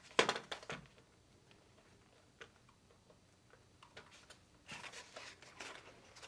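Faint clicks and rustling of hands handling a small foam RC plane and its battery plug: a quick cluster of clicks at the start, a single tick in the middle, and a few soft clicks and rustles near the end.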